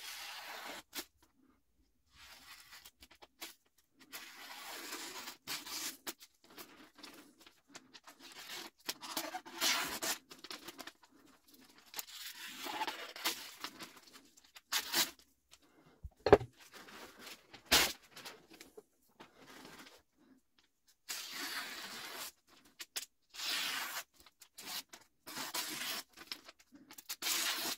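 Freshly sharpened kitchen knives slicing through a sheet of paper, an irregular run of short cutting strokes with paper rustling and crackling between them, a paper cutting test of the edges. A couple of sharp knocks a little past halfway.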